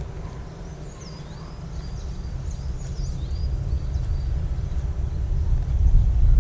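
A bird chirps a quick run of short, swooping high calls in the first half, over a steady low rumble with a faint hum, and the rumble grows louder toward the end.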